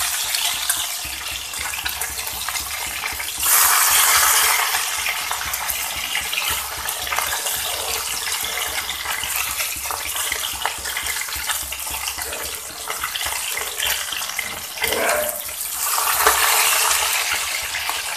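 Rohu fish steaks frying in hot mustard oil in a wok: a steady sizzle with fine crackling. It swells louder twice, a few seconds in and near the end, as pieces are turned over into the oil.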